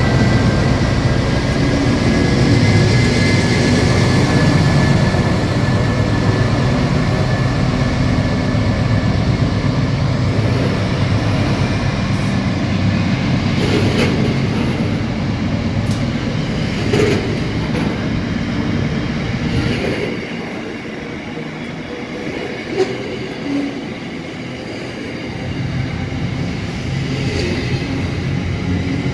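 Pacific National freight train passing close by at speed: the deep rumble of its diesel-electric NR class locomotives, with a thin high whine in the first few seconds. About two-thirds of the way through the engine rumble falls away, leaving the lighter rolling noise of container wagons with scattered wheel clicks and knocks.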